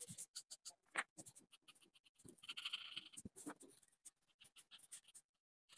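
Felt-tip marker scratching on paper in quick short colouring strokes, with one longer, higher-pitched stroke a little past halfway.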